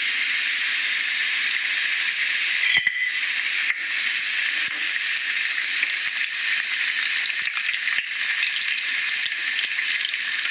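Pieces of makrout semolina pastry deep-frying in hot oil in a frying pan: a steady, even sizzle, with a few light knocks.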